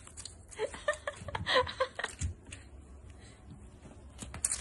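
A woman chuckling and laughing softly in short breaths for about a second and a half, then a few sharp clicks near the end.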